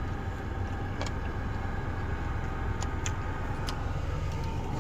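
Steady low hum, like a running engine, with a few faint clicks over it.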